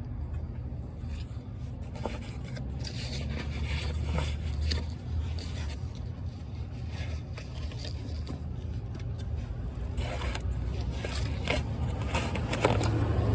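Scattered scrapes and light metallic clicks of hand tools and parts being handled while a starter is fitted under a vehicle. A steady low hum runs underneath.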